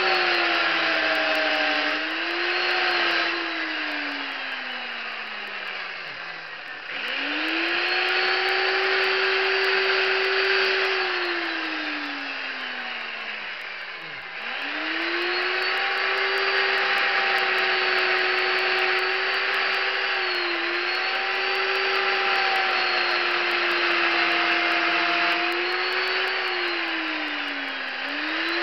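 Chainsaw with a narrow carving bar running at high revs while carving a block of wood. Twice the revs fall away so the pitch slides down, then it revs sharply back up, with a few brief dips later on.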